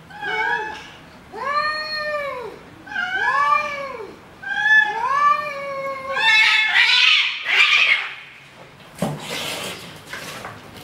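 Two cats yowling at each other in a standoff: a string of five long wails that rise and fall, one after another. About six seconds in comes a harsh, noisy screech, and near the end a brief burst of scuffling as they come to blows.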